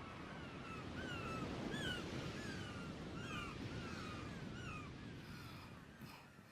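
Birds calling: short chirps that slide downward in pitch, repeating about twice a second over a steady rushing background, growing fainter near the end.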